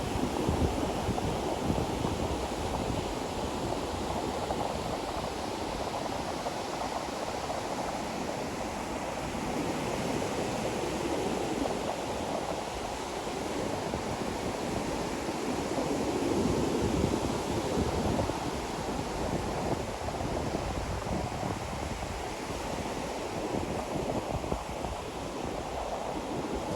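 Ocean waves washing onto a beach: a steady rush of surf that swells gently louder and eases back as sets come in.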